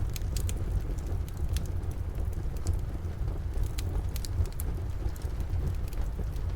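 Wood fire crackling in a fireplace, with scattered sharp pops, over steady rain and a constant low rumble.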